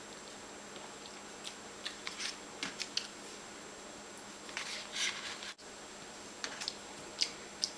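Scattered soft clicks and taps of cups being picked up and set down, with a couple of brief sips of soda.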